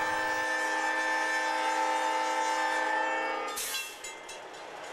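MP15DC locomotive's air horn holding one long, steady multi-note chord as a warning, which cuts off sharply about three and a half seconds in. After it, only the quieter running noise of the train rolling along the rails is left.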